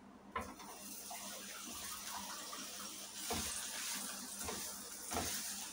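Hot frying pan on a gas burner hissing, with a few light knocks as the pan is handled. About three seconds in, an uncooked aloo paratha is laid in and the hiss grows into a frying sizzle.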